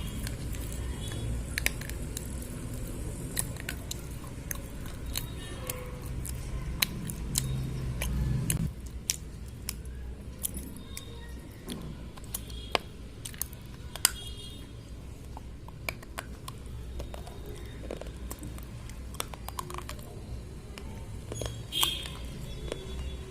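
Slate pencils being bitten and chewed: many sharp crunches and snaps scattered irregularly through, over a low rumble that stops about eight and a half seconds in.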